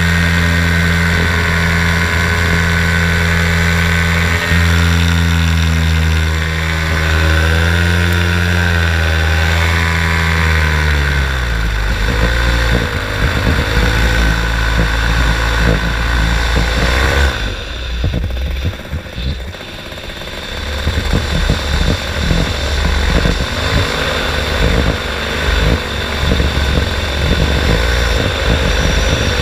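Paramotor engine and propeller running steadily at power, then throttled back: its pitch slides down about ten seconds in and it settles to a low, uneven idle with wind buffeting the microphone. The sound dips briefly about two-thirds of the way through.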